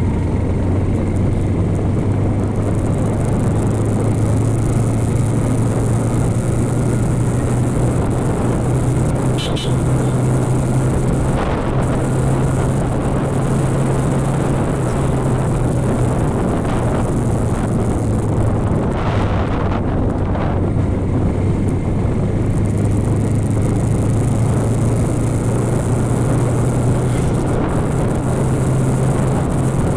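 Bajaj Pulsar NS160 motorcycle engine running steadily while the bike is under way, its low hum shifting a little in pitch as the speed changes, with wind noise rushing over the phone's microphone.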